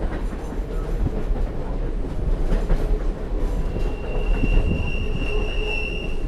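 Train rolling along the rails with a steady low rumble. About three and a half seconds in, a high, steady wheel squeal sets in and holds for a little over two seconds.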